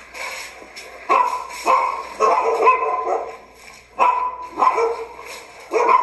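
Street dogs barking: a run of sharp barks about every half second, with a short lull a little after three seconds in before the barking picks up again.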